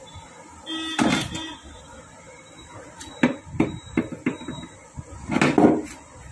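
Metal parts of a stripped TVS Star City 110 motorcycle engine crankcase being handled: a clank with a brief metallic ring about a second in, a run of sharp clicks and knocks in the middle, and a louder clatter near the end.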